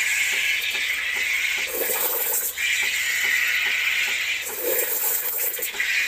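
Steam wand of a Krups espresso machine hissing and gurgling into milk in a glass carafe as it froths the milk. The hiss and gurgle shift in strength every couple of seconds.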